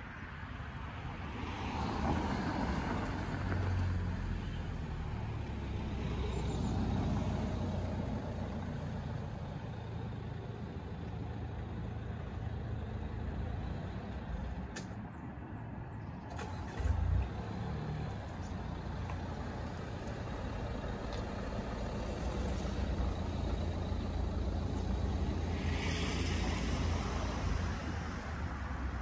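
Cars drawing up and idling in a queue at lowered level-crossing barriers: a steady low engine rumble, with a car passing close by about 26 seconds in and a brief low thump about 17 seconds in.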